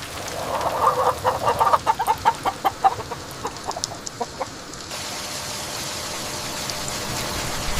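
Chickens clucking, a quick run of clucks that thins out and stops about four seconds in, over steady rain.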